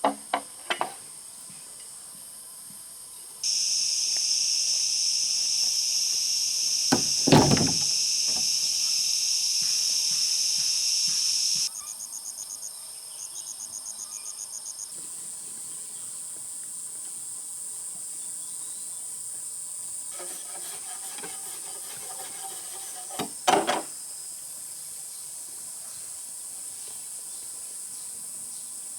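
Insects shrilling steadily: a loud high buzz for several seconds that stops abruptly, then rapid pulsing chirps, then a quieter steady chorus. A few dull knocks break through, the loudest about seven seconds in and another about twenty-three seconds in.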